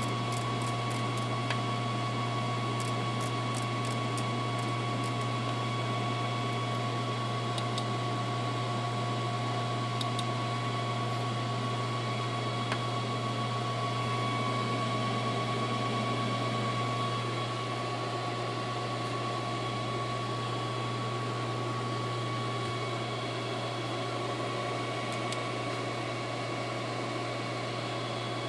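Steady electrical hum and fan noise of a powered-up aircraft cockpit: a low hum under several thin, steady whining tones from the running avionics and their cooling fans. A few faint clicks in the first few seconds.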